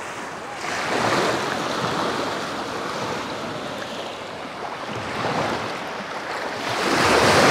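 Sea surf washing and breaking near the shore, coming in swells, with the loudest wave near the end.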